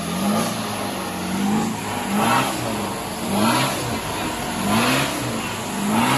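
Land Rover Discovery's diesel engine revving up and dropping back again and again, about once a second, as the four-by-four works in deep mud; each rev peak comes with a burst of rushing noise from the tyres churning mud.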